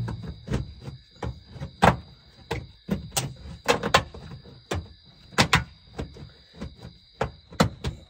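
Hand tool cutting a round hole through metal wall siding: a string of sharp, uneven snips and clicks, two or three a second.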